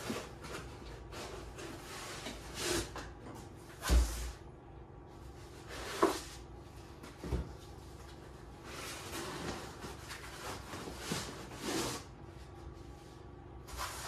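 Cardboard box and foam packing inserts being handled: rustling cardboard and several dull knocks as foam-packed parts are lifted out and set down on a table, the loudest knock about four seconds in.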